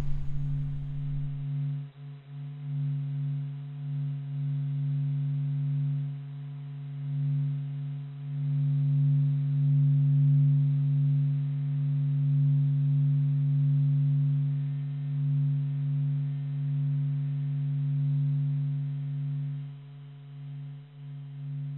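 A sustained low droning tone with a few fainter overtones above it, steady in pitch, slowly swelling and easing in loudness.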